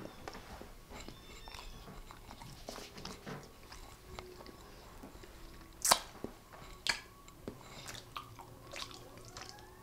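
A man chewing a mouthful of dry, gritty chocolate chip keto mug cake, with faint wet mouth clicks and smacks. Two sharper smacks come about six and seven seconds in.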